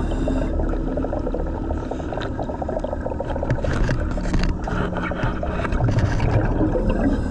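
Heard underwater: a diver's breathing bubbles gurgling and crackling, over a low hum with faint steady tones that come and go and scattered small clicks.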